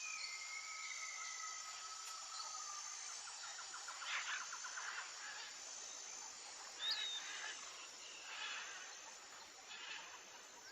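Faint outdoor nature ambience: a high insect chirp repeating steadily throughout, with a held whistling call in the first few seconds and a few short bird-like chirps scattered later.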